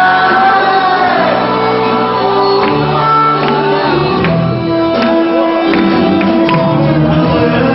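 Loud music with a singer over long held instrument tones and a few sharp percussive hits.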